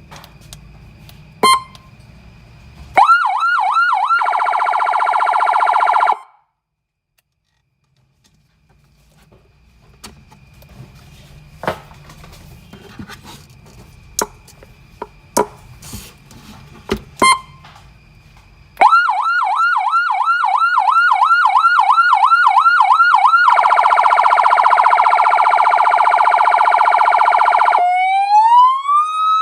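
AS920 electronic siren through a 200-watt slim horn loudspeaker, cycling through its tones: a fast up-and-down yelp, then a harsh steady horn tone that cuts off. After a pause with scattered clicks it yelps again, sounds the horn tone, and near the end begins a slow rising wail.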